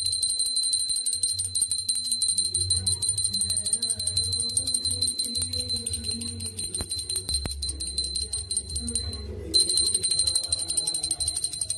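A puja hand bell rung rapidly and without a break for the aarti, pausing briefly near the end, over a quieter melody.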